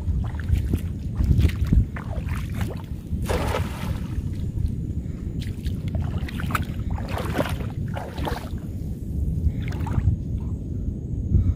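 Water splashing and swishing around a man wading in a shallow lagoon as his cast net sinks and he starts pulling in its hand line, a handful of separate splashes over a constant low rumble of wind on the microphone.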